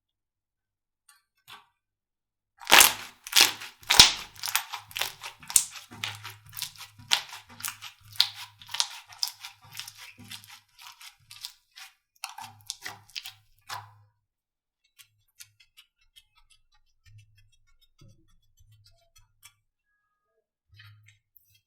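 Slime being squeezed and pressed, giving a rapid run of sharp pops and crackles that starts about three seconds in, loudest at first, then thins out to scattered faint clicks.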